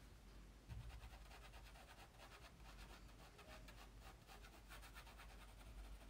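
Faint pencil strokes scratching on sketchbook paper, a quick run of repeated shading strokes.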